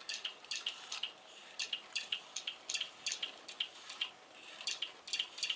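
A quick, irregular run of light, sharp clicks or taps, several a second.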